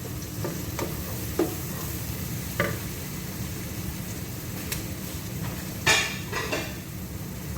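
Utensil stirring and scraping a frying onion and tomato base in a pan, with a steady sizzle and a few sharp knocks of the utensil against the pan, the loudest about six seconds in.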